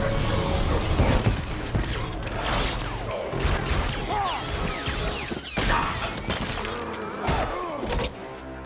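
Film battle sound effects: rapid sci-fi energy-weapon fire in short swooping zaps, with crashes and thuds of impacts, over a film score.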